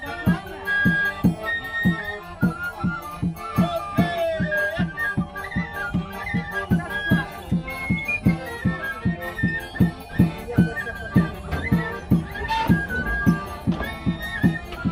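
Small folk band with accordion and flute playing a lively traditional tune over a steady beat.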